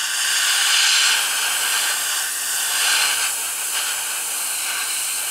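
Gravity-feed airbrush spraying thinned paint: a steady hiss of air, swelling a little about a second in and again around three seconds.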